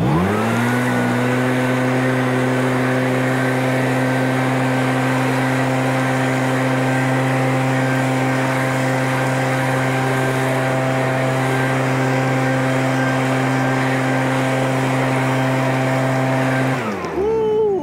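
ECHO PB-9010 backpack blower's 79.9 cc two-stroke engine revving quickly up to full throttle, running steadily at full power with a rush of air from the tube, then dropping back toward idle near the end.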